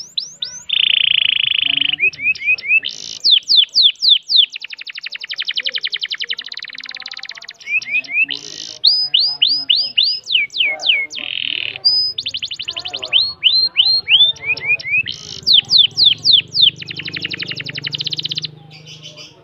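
Domestic canary singing a long, nearly unbroken song: fast buzzing trill rolls alternating with quick runs of repeated downward-sweeping notes. The song stops shortly before the end.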